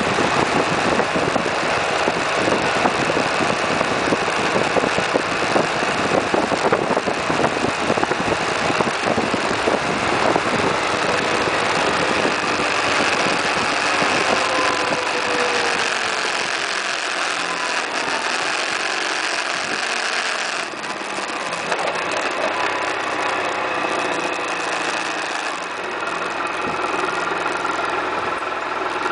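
Suzuki Burgman 650 maxi-scooter under way: its parallel-twin engine running beneath wind rushing over the microphone. Past the middle the wind rumble eases and the engine's pitch falls as the scooter slows.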